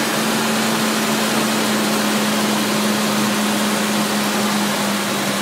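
Suzuki Vitara V6 engine idling steadily on freshly replaced timing chains. It is running smoothly and quietly with no chain rattle, the way it should sound. The steady hum drops slightly in pitch near the end.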